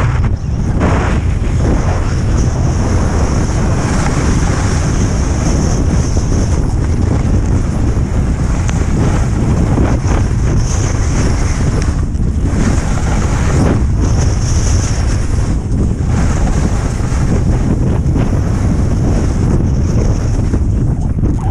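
Wind buffeting the microphone of a camera worn by a skier moving downhill, heavy and unsteady in the low end, with a high hiss of skis sliding over snow.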